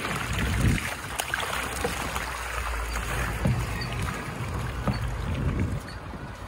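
Water splashing and churning as a cast net packed with baitfish is hauled up against a boat's hull, the fish thrashing at the surface, over a steady low wind rumble.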